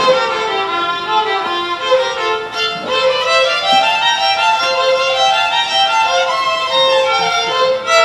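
Two violins playing a tune together, bowed notes moving in two parts in harmony.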